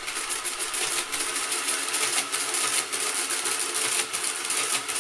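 Madas Model 20LZVG electromechanical calculator running an automatic division: its electric motor drives a fast, continuous clatter of cycling gears as it subtracts over and over, with the carriage stepping along from column to column.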